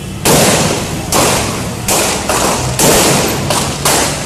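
Gunfire: about seven separate shots at uneven intervals, roughly half a second to a second apart, each trailing off in a long echo.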